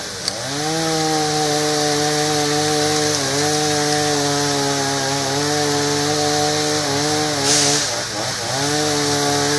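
Chainsaw engine held at high revs, with a brief sag about three seconds in. It drops back to idle near the end, then revs up again.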